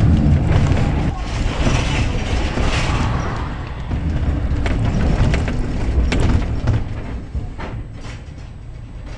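Tram running on metre-gauge track: a steady low rumble from wheels and running gear, with sharp knocks as the wheels cross rail joints and a switch in the second half. The rumble fades toward the end.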